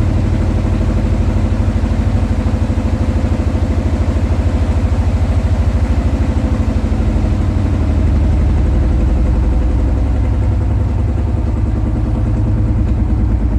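Siemens washing machine running loud with a rapid, steady pulsing rumble from the drum. The owner puts this down to defective drum dampers.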